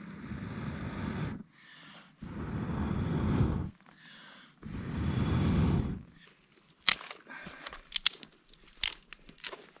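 Three long breaths blown onto embers to revive a campfire, each swelling as it goes, followed by a run of sharp crackles and snaps from about seven seconds in.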